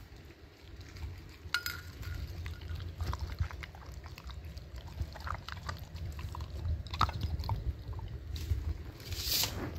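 A dog eating soft shredded chicken from a stainless steel bowl: irregular wet smacking and chewing with small clicks, a short ringing tap about a second and a half in, and a brief louder noisy burst near the end.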